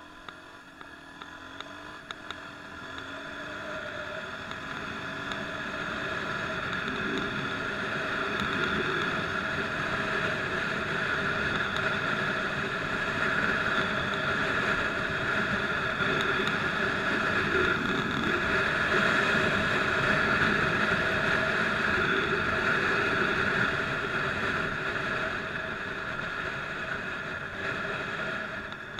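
Motorcycle engine running at freeway speed, with wind rushing over a helmet-mounted camera. It grows louder over the first several seconds as the bike picks up speed, then holds steady.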